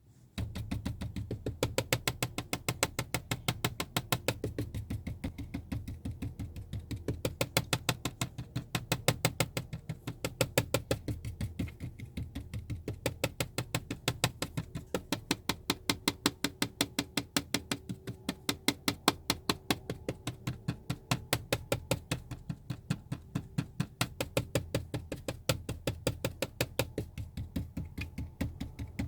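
Plastic seat trim piece rattling in quick, fairly even clicks, about five a second, over a low steady rumble.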